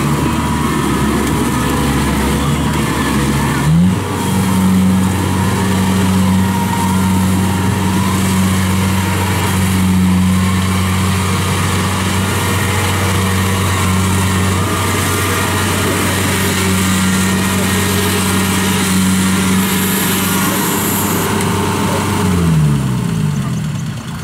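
Kubota DC70 combine harvester's engine running, with its pitch rising sharply about four seconds in, holding steady at working speed, then falling away near the end.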